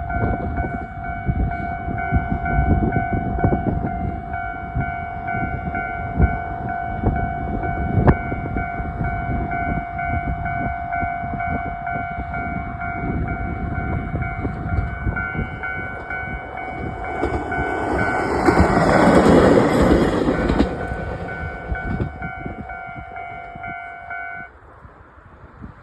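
Japanese level-crossing alarm ringing in a steady, repeating electronic ding-ding pattern while a train runs past with rumbling wheel clatter. The train noise swells loudest about 18 to 21 seconds in. The crossing alarm then stops about 24 seconds in.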